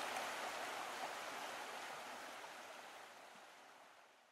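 A steady, even rushing noise like running water or sea, with no tones or beats, fading out gradually to almost nothing.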